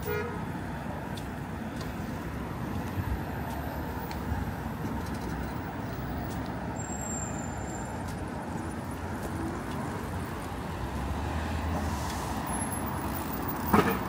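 Steady city street traffic: the mixed noise of cars and other motor vehicles on the road, with a short, sharp, loud sound near the end.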